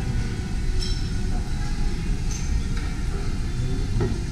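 Restaurant room noise: a steady low rumble with faint voices behind it and a couple of light clicks.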